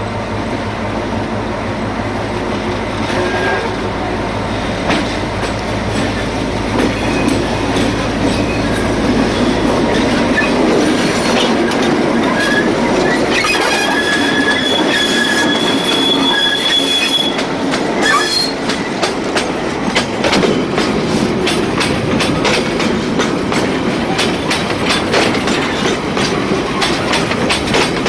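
A train passing close by: a diesel locomotive's low hum for the first ten seconds or so, then wheels squealing on the rails for several seconds near the middle, followed by a steady clickety-clack of wheels over rail joints as the wagons roll past.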